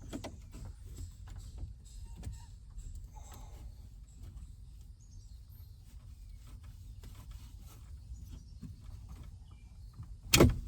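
Hand work with a utility knife on plastic dash-kit parts: scattered small clicks and rustles, then one loud sharp snap near the end, over a steady low rumble.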